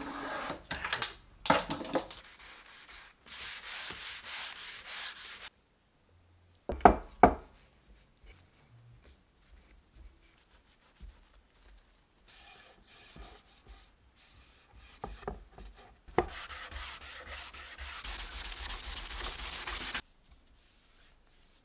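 Wooden parts being hand-sanded with sandpaper: several stretches of scratchy rubbing, with two sharp knocks about seven seconds in.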